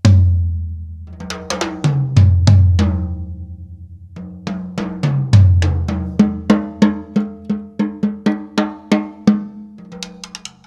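Acoustic drum kit played in short fills to sound-check it: heavy low hits at the start, about two seconds in and about five seconds in, then an even run of ringing drum strokes at about four a second.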